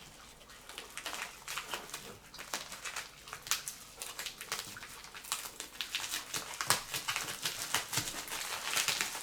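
Plastic packaging crinkling and rustling in irregular crackles as a mail package is opened and its contents unwrapped.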